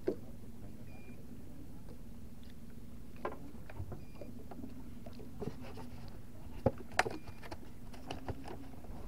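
Boat engine running steadily with a low hum, with a few sharp knocks and clicks, the loudest two close together past the middle.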